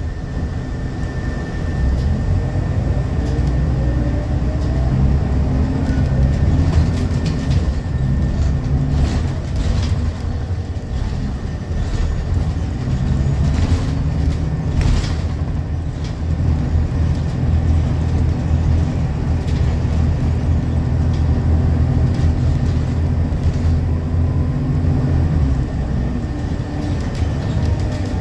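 Scania L94UB bus heard from inside the cabin while driving: the engine and ZF automatic transmission drone low, rising in pitch as the bus accelerates a few seconds in, with rattles and clicks from the body and fittings along the way.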